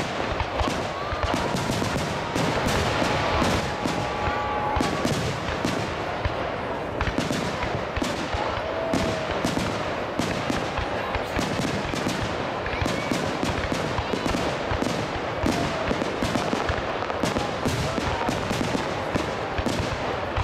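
Aerial firework shells bursting in quick succession, a dense, unbroken run of bangs several times a second.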